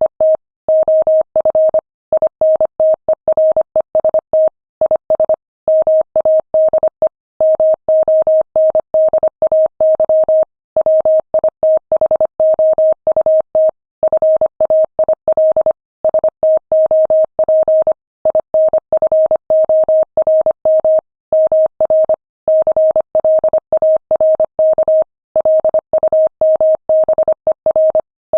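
Morse code sent at 25 words per minute: a single steady mid-pitched tone keyed rapidly on and off in dots and dashes, with short pauses between words.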